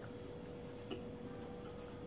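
Faint, irregular small clicks and taps of a hand picking up pieces of cut fruit from a tray, with one sharper click about a second in, over a steady low hum.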